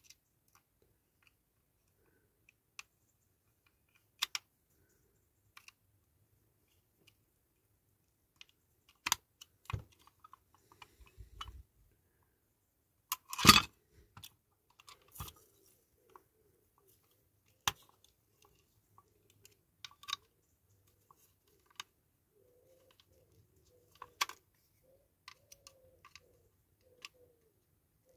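Sparse clicks and taps of a die-cast metal toy and small tools being handled during reassembly, with one louder knock about halfway through.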